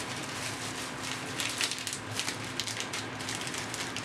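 A clear plastic bag crinkling as it is handled, in quick irregular crackles, over a faint steady hum.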